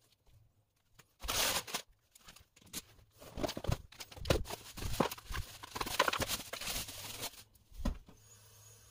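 Plastic bag and bubble-wrap packaging rustling and crinkling as the parts are unpacked from a cardboard box. There is a short burst about a second in, then a longer stretch of crinkling with small clicks, and a single knock near the end.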